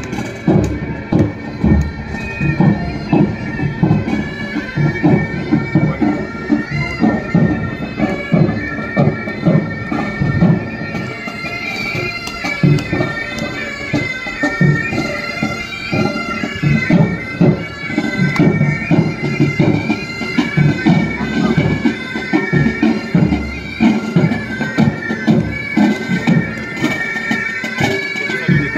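Military pipe band playing: bagpipes sounding a melody over their steady drones, with a regular beat from side drums and a bass drum.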